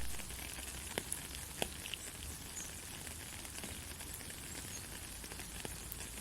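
Steady rainfall hiss with occasional sharp drops ticking close by. A sharp loud click right at the start.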